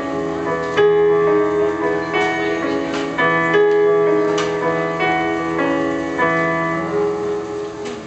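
Yamaha keyboard playing a solo piano outro: slow chords and single melody notes, struck about once or twice a second and left to ring, getting quieter towards the end as the song closes.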